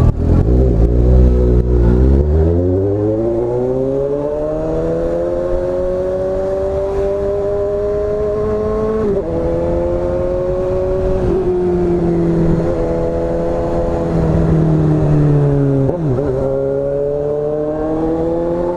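Motorcycle with a modified, louder exhaust accelerating. The exhaust note climbs steadily in pitch, then dips briefly and picks up again about 9, 11 and 16 seconds in.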